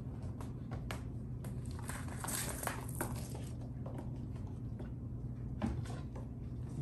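Maine Coon kittens playing on a wooden floor: scattered light paw taps and scrabbling, a scratchy rustling for about a second and a half near the middle, and one sharper thump late on. A steady low hum runs underneath.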